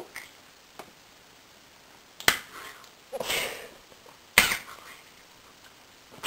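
Two sharp, smacking clicks about two seconds apart, with a short breathy rush of sound between them and a faint click early on.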